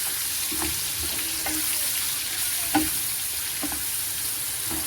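Pieces of chicken breast sizzling as they fry in hot oil in a pan, while being stirred: a steady hiss with a few short knocks and scrapes of the stirring utensil against the pan, the loudest nearly three seconds in.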